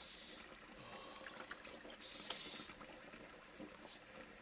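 Faint water running from a tap into a bathroom sink, with soft splashes as water is cupped in the hands and splashed onto the face.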